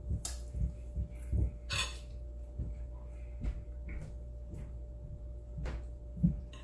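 Eating sounds: chewing spaghetti and meatballs with soft mouth noises, and a few light clicks of a metal fork against a ceramic plate. A faint steady hum runs underneath.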